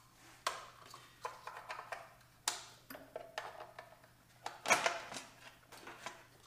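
Scattered clicks, taps and knocks of a hand tool and parts being worked at the fuel-line fittings in a car's engine bay, with the loudest knock about three-quarters of the way through.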